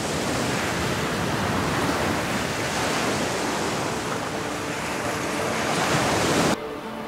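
Surf on a beach with wind on the microphone, a steady rushing noise that cuts off suddenly near the end, leaving a much quieter background.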